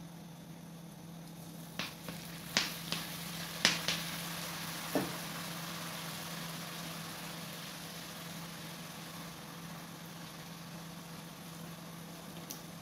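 Butter and garlic sauce sizzling in a wok as liquid seasoning is added, the sizzle swelling a couple of seconds in and then slowly easing. A few sharp clicks and knocks come between about two and five seconds in, over a steady low hum.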